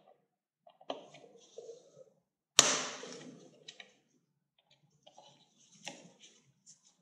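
Hand tools and small parts being handled during work on a motorcycle engine: one loud sharp clack about two and a half seconds in that fades over about a second, among a few light clicks.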